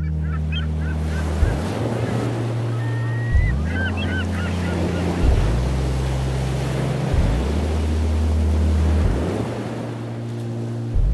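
Waves breaking on a beach, with gull calls near the start and again around four seconds in, over a deep synth bass line that changes note about every two seconds.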